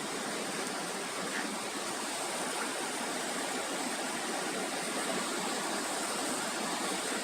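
Rushing water from a waterfall and its river, a steady, even hiss without breaks.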